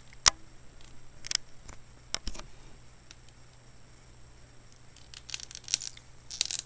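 Fingers picking at the plastic tab on a clear plastic iPod box: a few separate sharp plastic clicks, then a quick run of crinkling clicks near the end as the tab starts to come free.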